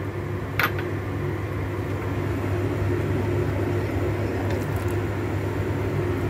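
A steady low mechanical hum runs throughout. About half a second in there is a single sharp clink as a ceramic plate knocks against a stainless steel stockpot, with a few fainter clicks near the end.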